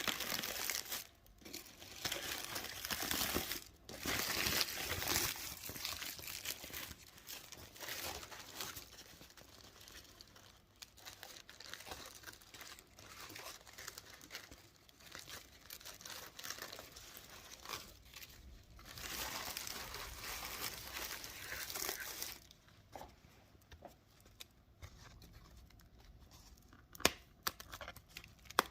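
Crinkling wrapper of a pack of Opavia Kolonáda hazelnut spa wafers being handled and torn open, in irregular bursts of rustling. It quiets after about twenty-two seconds, leaving a few sharp clicks near the end.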